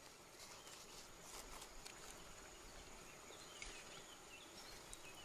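Near silence outdoors: a faint, steady high-pitched insect drone, with a few soft clicks and faint chirps about three to four seconds in.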